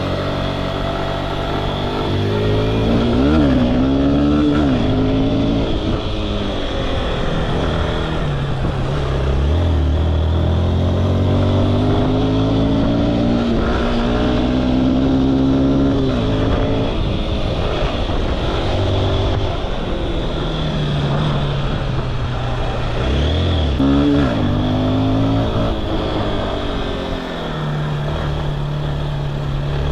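A 190cc motorcycle engine being ridden, its pitch rising and falling several times as the throttle is opened and closed.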